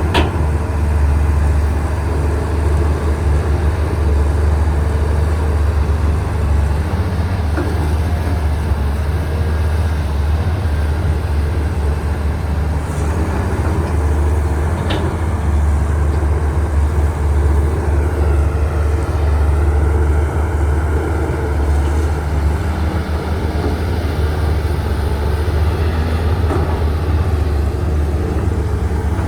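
Diesel engines of CAT 320CL hydraulic excavators running steadily under working load, a constant low drone. A few light knocks of the machines can be heard now and then.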